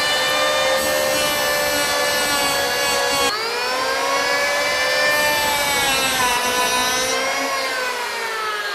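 Electric hand power planer running with a steady high whine as it cuts the end grain of a board. Its pitch drops sharply about three seconds in and recovers, then sags a little twice more near the end as the cutter head takes the load.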